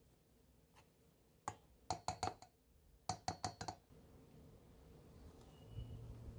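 Hand potato masher clinking against a stainless steel bowl while mashing boiled sweet potato: a quick run of sharp, ringing clinks in two groups between about one and a half and four seconds in.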